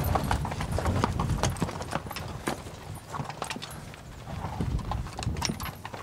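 Hooves of a close-packed herd of Icelandic horses clopping and shuffling on hard ground as they mill about: many irregular knocks, busiest in the first half and thinning out about halfway through.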